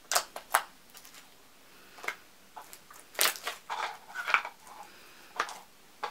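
Glossy jiggly slime being squished and pressed by hand, giving off irregular sharp pops and crackles, a cluster of them in the first second, with some softer squishing about three to four seconds in.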